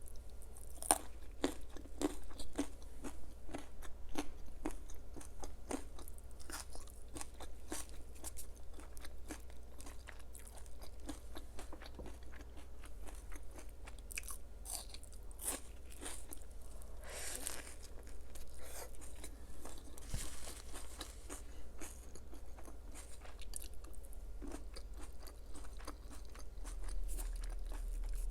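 Raw carrot being bitten and chewed close to the microphone: many sharp, wet crunches, densest in the first few seconds and thinning to slower chewing later.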